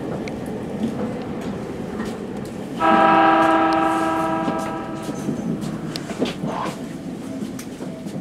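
Electric train's horn sounding one steady blast of about two seconds, starting sharply about three seconds in and then fading, over the steady rolling noise of the train running through a station.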